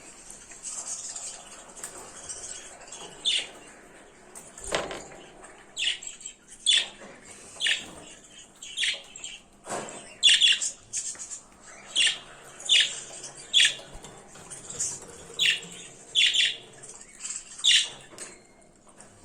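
Birds calling: a short, sharp call repeated about once a second over softer high chirping, with a couple of dull knocks in between.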